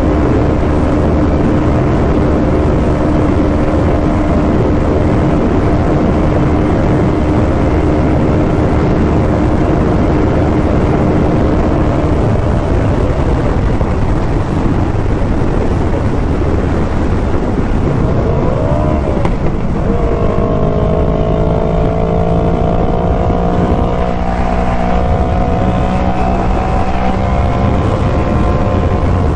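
Sport motorcycle running flat out in sixth gear under heavy wind rush, its engine a steady drone. About twelve seconds in the engine tone drops away as the bike slows. About twenty seconds in a new, slowly falling engine tone comes in over the wind.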